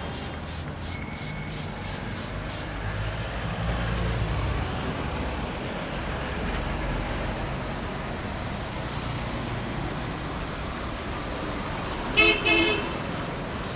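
Steady street-traffic rumble, with a vehicle horn honking twice in quick succession near the end. In the first couple of seconds there are quick light taps, about four a second.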